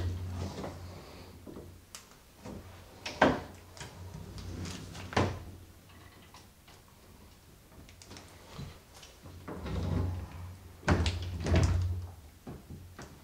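Hollow-panel bifold closet doors being pulled open by their knobs and pushed shut several times. The panels rumble along the track and fold with a handful of knocks and thumps, the sharpest about three seconds in and near the end.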